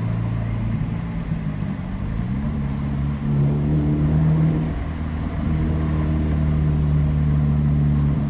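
Nissan Sentra B17's engine and straight-piped exhaust with an HKS muffler, droning as heard from inside the cabin while driving. The pitch drops about a second in, climbs as the car accelerates around two to three seconds in, eases off near five seconds and rises again.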